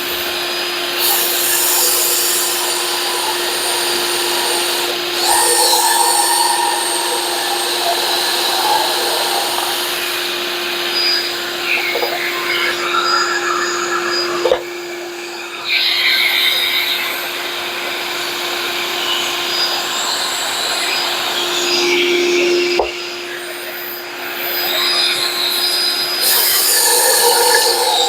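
A shop vacuum runs steadily as dust collection on a pocket hole jig. Over it, a drill bores pocket holes into plywood through the jig in several separate bursts.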